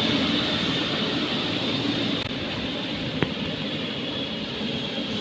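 Heavy construction machinery engine running steadily, with a single sharp click about three seconds in.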